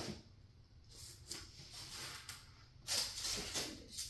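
Rustling and scraping of packing material, such as styrofoam and cardboard, being handled in short bursts, the loudest near the end.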